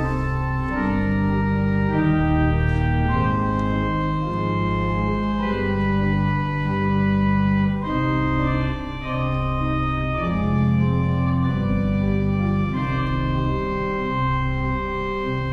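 Pipe organ playing slow, sustained chords over a moving bass line, the notes held and changing about once a second.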